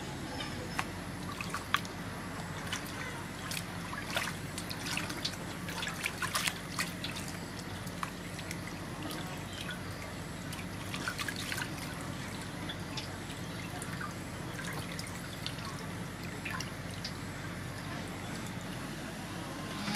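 Water dripping, trickling and splashing as a slab of raw pork is rubbed and lifted in an aluminium basin of water, in irregular clusters of small splashes and drips.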